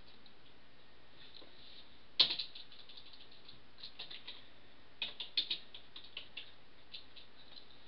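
A computer mouse click about two seconds in, then computer keyboard keys tapped in quick bunches as a short name is typed. The clicks are sharp and light over a faint steady hiss.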